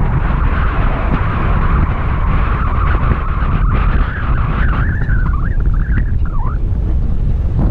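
Vehicle running along, with a heavy rumble and wind buffeting the microphone; a whine rides over it and wavers up and down near the end.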